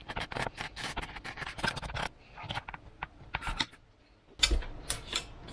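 Snap-off utility knife blade cutting through an EPP foam fuselage: a rapid, crackly scratching that thins out after about two seconds. Near the end, a few louder knocks.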